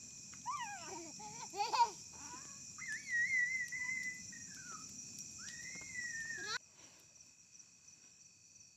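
Children shouting and calling out in high voices, including a long drawn-out cry about three seconds in and another near six seconds, over steady cricket chirping. The voices stop abruptly about two-thirds of the way through, leaving only the crickets.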